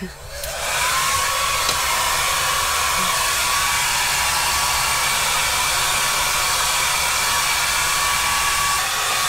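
Handheld hair dryer switched on and blowing: its motor whine rises as it spins up over the first second, then it runs steadily with a loud, even rush of air.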